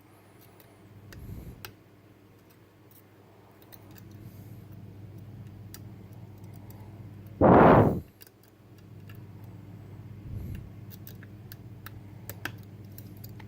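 Faint scattered clicks of a pick working the sliders of a Bellock cam lock held under tension, over a steady low hum. About halfway through comes a loud rush of noise lasting about half a second.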